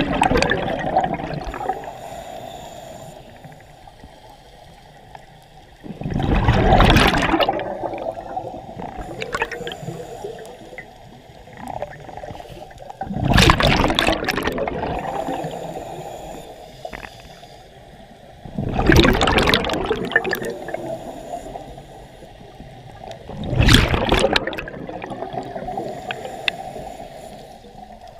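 A scuba diver's regulator exhaling: a loud rush of exhaust bubbles every five to six seconds, four times, with a quieter steady hiss and bubbling between breaths.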